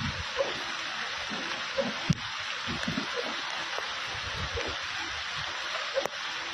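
Heavy rain falling steadily as a dense, even hiss, with two sharp clicks, one about two seconds in and one near the end.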